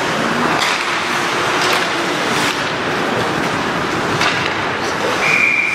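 Ice hockey game sound: steady rink noise with four sharp clacks of sticks and puck, then a referee's whistle blown briefly near the end.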